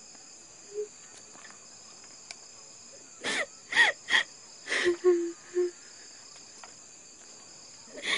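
A steady high chorus of night crickets, and about three seconds in a person breaks into crying: about six short gasping sobs with falling pitch over two seconds or so.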